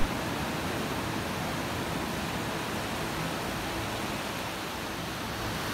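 Steady rushing noise of surf breaking on a sandy beach.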